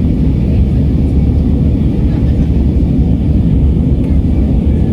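Steady, even rumble of an Airbus A319's engines and airflow heard inside the passenger cabin in flight.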